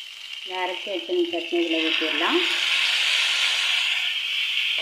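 Curry leaves and mustard seeds sizzling in hot oil in a pan. About halfway through, the sizzle grows louder and fuller as the ground onion chutney paste is poured into the oil. A brief voice is heard in the first half.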